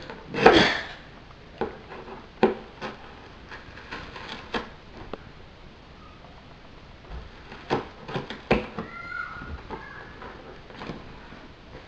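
A knife scraping and jabbing at the top of a taped cardboard shipping box: a longer scrape just after the start, then scattered light knocks and clicks on the cardboard, with a brief squeak about nine seconds in.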